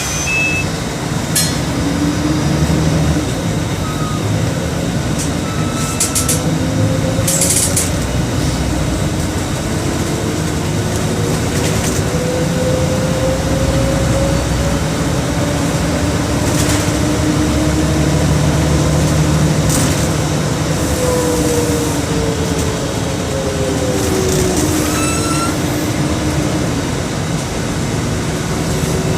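Mercedes-Benz OM 457 LA turbocharged inline-six diesel of an articulated city bus under way, heard from on board. Its engine note rises and falls slowly several times as the bus accelerates and eases off, with occasional short rattles and clicks.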